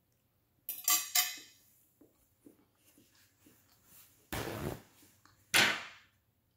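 A metal fork clinks a few times against a glass baking dish about a second in, then a paper napkin is pulled out and rustled, in two short bursts a little past halfway and near the end.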